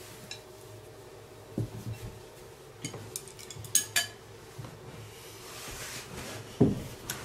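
Tableware clinking and knocking at a meal: a handful of separate sharp clinks and a few dull knocks, spaced irregularly over several seconds.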